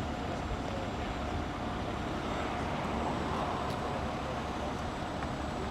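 Steady vehicle road noise: a continuous low rumble with a faint steady hum and no distinct impacts.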